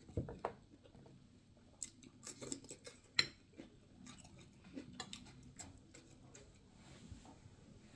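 Close-up eating sounds: chewing of jollof rice, chicken and cucumber, with scattered sharp clicks and taps.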